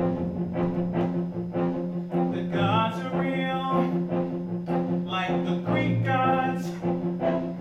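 Musical theatre song: sustained low string notes under a steady beat about twice a second, with singing voices coming in twice.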